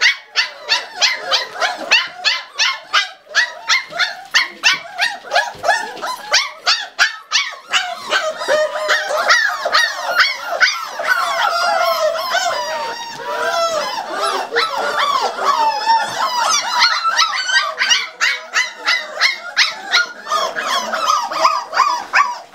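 A litter of five-week-old corgi puppies yapping rapidly, about two to three yaps a second, then whining and howling over one another from about eight seconds in, with yapping again near the end: the puppies are hungry and demanding food.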